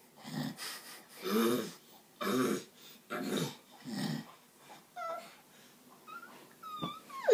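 A baby's breathy, panting laughter in short bursts about once a second, followed near the end by a few brief high squeals.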